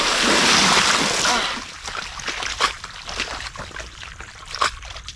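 A burst of muddy water thrown up out of a ditch crashing back down as loud spray. It fades over about two seconds into scattered drips and small splashes on the water surface.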